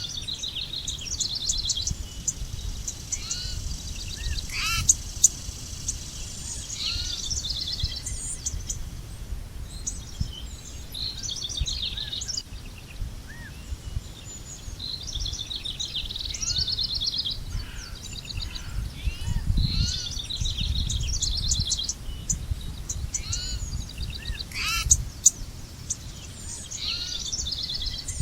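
Several songbirds singing over one another, with short repeated trilled phrases and chirps coming every second or two, over a steady low rumble.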